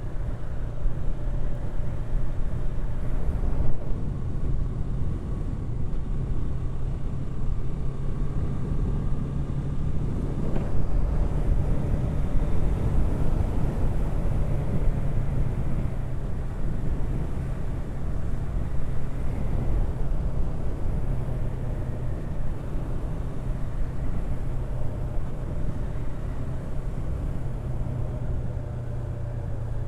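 Yamaha R3's 321 cc parallel-twin engine running at a steady speed while the motorcycle is ridden, with road and wind rumble heard from the rider's helmet.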